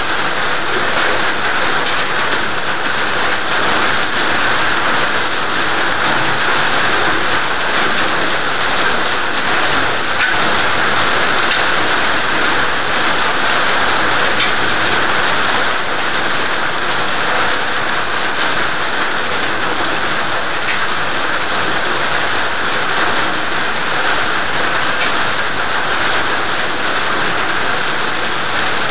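Steady rain, an even hiss with no let-up and faint scattered drop ticks.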